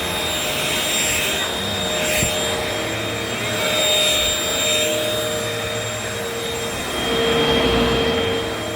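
Several vacuum cleaners running at once, a steady rushing noise carrying a few steady motor whines at different pitches, some fading in and out as the machines move.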